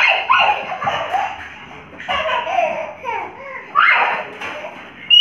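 Young children laughing and squealing in play, a string of short high-pitched outbursts that slide down in pitch.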